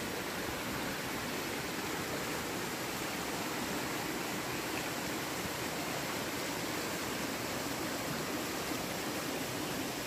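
Steady rushing noise at an even level, with no distinct events.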